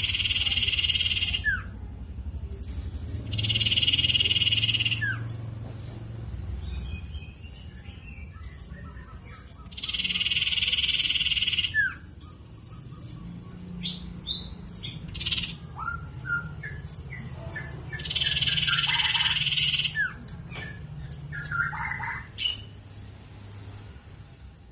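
Sirtu (common iora) singing: long, even trills of about two seconds, four times. Each ends in a short falling note, with shorter chirps between them. This is the lure song used to make other sirtu answer.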